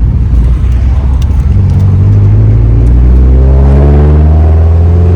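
Car engine accelerating hard, a low rough rumble at first, then the revs climbing steadily with the pitch rising through the rest.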